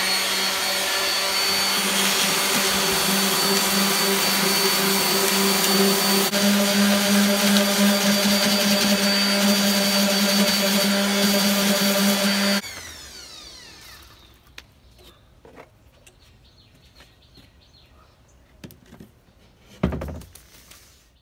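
Electric orbital sander running steadily, sanding hardened epoxy resin drips off the back of a canvas frame; about twelve seconds in it is switched off and spins down. After it, light knocks from handling the canvas and one thump near the end.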